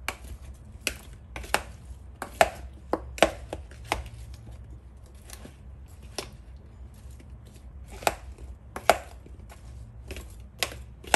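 A red silicone spoon tossing raw cauliflower florets coated in a spice mix in a plastic mixing bowl. It makes irregular knocks and clacks, one or two a second, as the florets tumble and the spoon hits the bowl.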